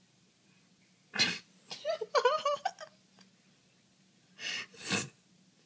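People laughing: a few short, breathy bursts, with a stretch of high, wavering giggling about two seconds in.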